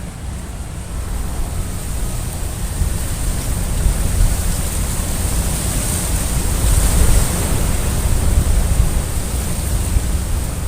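Wind buffeting the microphone: a steady rushing noise with a deep, fluttering rumble that swells in the middle.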